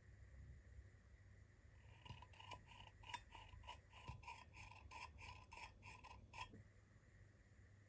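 Thumb-pump lever of an old, rusty oil can being worked over and over: a quick run of small metal clicks, each with a brief squeaky ring, about three to four a second, starting about two seconds in and stopping some four and a half seconds later.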